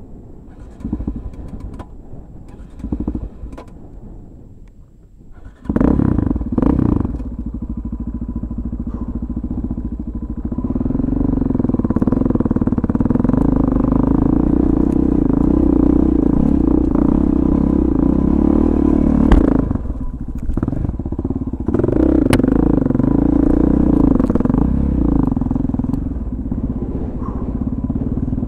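Motorcycle engine heard from the rider's helmet while riding a rocky dirt trail. It starts quieter with a few sharp knocks and clatters, then the throttle opens suddenly about six seconds in and the engine runs hard under load, easing off briefly about two-thirds of the way through before pulling hard again.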